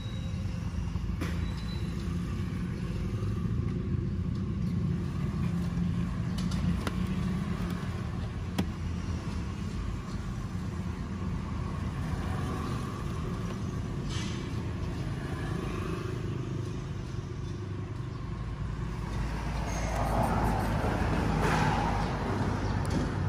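Low, steady rumble of a running vehicle engine, with a few light clicks scattered through it; the noise grows louder near the end.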